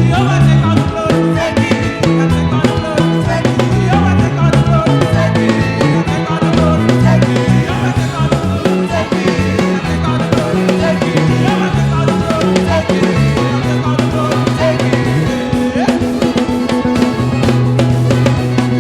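Live band music with drum kit, bass and guitar playing a steady groove, with some singing.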